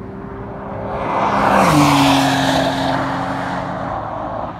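Porsche sports car driving past at speed. Its engine note swells, drops in pitch as the car goes by about a second and a half in, then fades as it pulls away.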